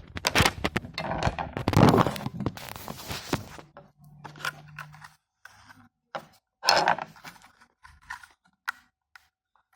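Plastic packaging of a new RAM module being handled and torn open: crinkling, scraping and tearing for about three and a half seconds, then scattered clicks and crackles.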